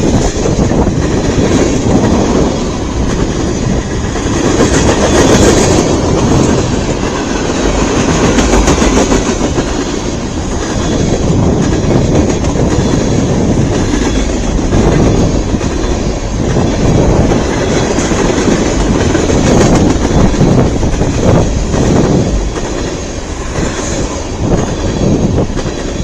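CN eastbound freight train A492 rolling past at speed: a steady loud rumble of its cars, with wheels clacking over rail joints.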